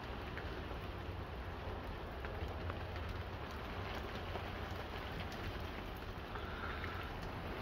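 Steady rain falling on leaves and foliage, with scattered drops ticking.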